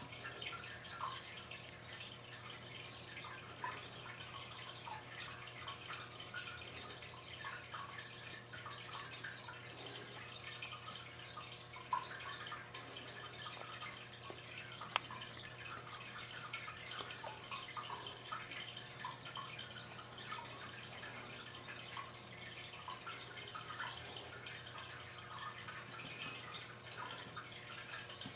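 Steady low hum and hiss with many small irregular clicks and ticks scattered throughout, two sharper clicks about twelve and fifteen seconds in.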